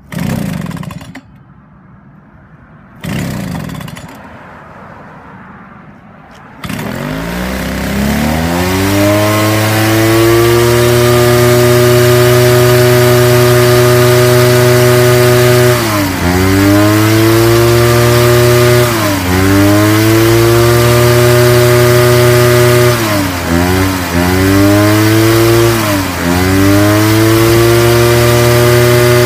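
Husqvarna 145BT backpack leaf blower's two-stroke engine being started: two short pulls of the recoil starter, then the engine catches at about six and a half seconds and revs up to full speed. It runs steadily at high throttle, and the throttle is eased off and opened again several times, the pitch dropping and climbing back each time.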